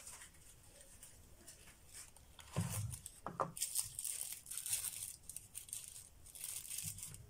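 Gloved hands opening a cardboard box of glass microscope slides and sliding one out. The rustling and scraping, with small clicks, starts about two and a half seconds in.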